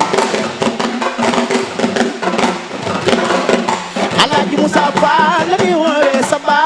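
Sabar drums playing a fast, dense pattern of sharp strokes. A singer's wavering, ornamented voice comes in over them about five seconds in.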